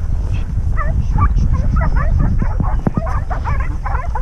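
Working cattle dogs barking and yipping in quick repeated bursts, with a steady low rumble underneath.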